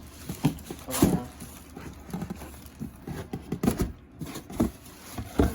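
Irregular knocks and thumps, with some rustling, as a shoe box and its packaging are handled and worked open.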